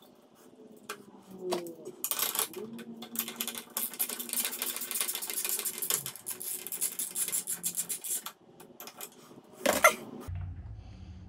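Socket ratchet clicking rapidly for several seconds as the nut on the outboard's tiller-handle bolt is run off with a long extension, then one sharp knock near the end.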